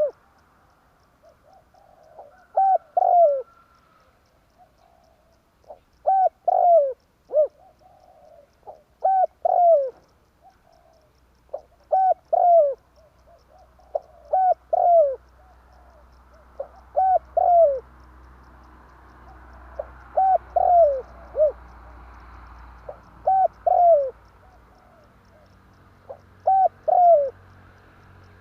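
Spotted dove (tekukur) cooing: about ten short phrases, each of two or three falling coos, repeated roughly every three seconds.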